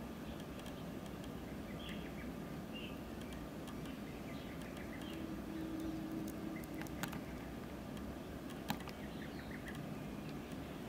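Outdoor ambience: a steady low rumble with faint, short bird chirps scattered through it, a brief low hum around the middle, and two sharp clicks about seven and nine seconds in.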